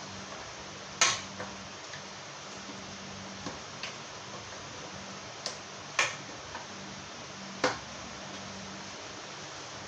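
Sharp clacks of hard things knocking against a cooking pot, scattered a second or more apart, the loudest about one, six and seven and a half seconds in, over a steady low hum and hiss.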